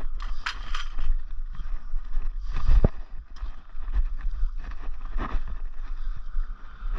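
Low wind rumble on a body-worn camera's microphone, with a few scattered knocks and rustles from handling the fishing rod; the loudest knock comes a little before the middle.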